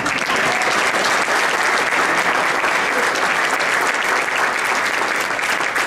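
A roomful of people applauding, a dense, steady clapping of many hands.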